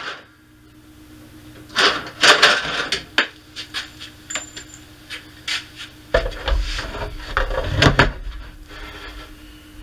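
Hand tools and small metal parts being handled: irregular clicks, clatters and scrapes, with a cluster of knocks about two seconds in and a low rumble ending in a sharp knock around eight seconds.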